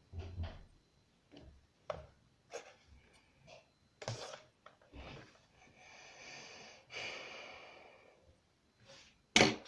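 Sheet paper being folded and creased by hand into an accordion: short crackles and taps, then two longer rasping stretches as folds are pressed and run flat, and a sharp snap near the end.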